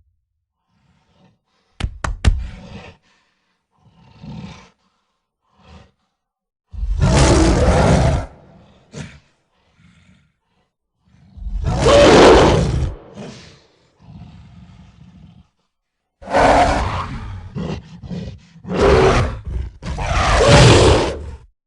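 A large animal roaring: five loud, rough roars with quieter grunts and rumbles between them, after a few sharp knocks about two seconds in.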